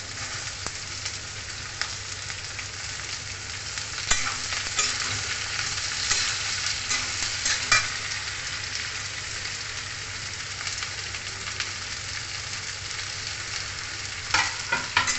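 Sliced onions sizzling steadily as they fry in hot oil in a steel kadhai. A spatula scrapes and knocks against the pan now and then, with a few sharp clicks and a cluster of knocks near the end.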